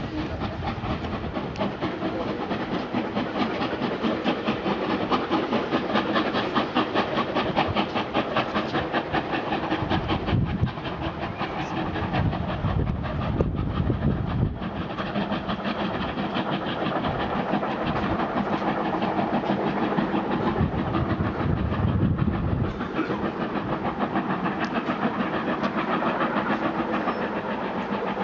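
Class 5MT steam locomotive's train pulling away, with a fast, steady rhythmic clatter of wheels and exhaust beats and some steam hiss.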